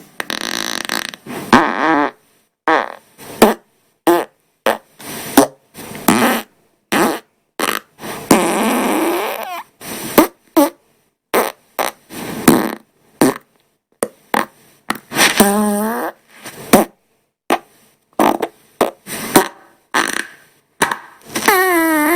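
Farts, about two dozen in quick succession, each cut off sharply before the next. Most are short blasts; a few of the longer ones waver in pitch as they go.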